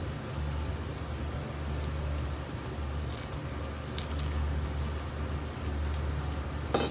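Udon dashi boiling in a frying pan over a gas burner, with a steady low rumble underneath. A few soft clatters about three to four seconds in as chunks of beef tendon are tipped into the broth.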